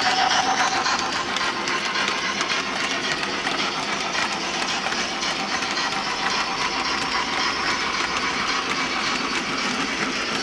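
Model goods train of vans running steadily along the track: a continuous rolling rattle with many small clicks from the wagon wheels on the rails and joints.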